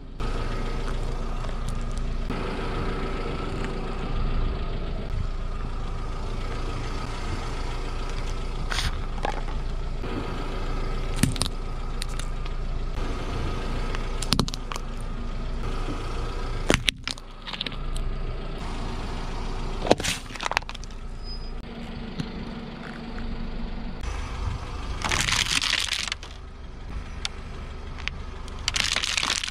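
A car idling and creeping forward, its tyre crushing hard objects on asphalt. There is a steady engine hum, with sharp cracks and snaps several times as plastic gives way under the tyre.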